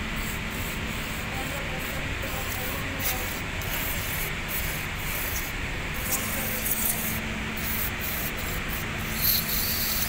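Aerosol contact cleaner sprayed through a thin straw onto the gearbox's shift solenoids in many short hissing bursts, over a steady background noise.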